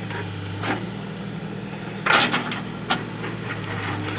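JCB 3DX backhoe loader's diesel engine running steadily, with a few short knocks over it, the loudest about two seconds in.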